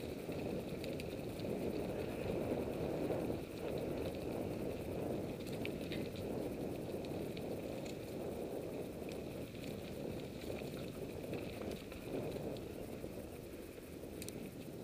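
Mountain bike rolling along a dirt singletrack: a steady rumble of tyres on the trail, with scattered small clicks and rattles from the bike.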